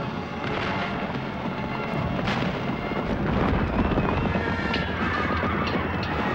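Noisy din of a cavalry battle: horses whinnying and moving amid a few sharp cracks of gunfire, with music mixed over it and growing near the end.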